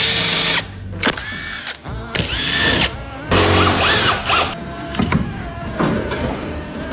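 Cordless power drill-driver running in about four short bursts, each spinning up and winding down, then quieter sounds of tool handling.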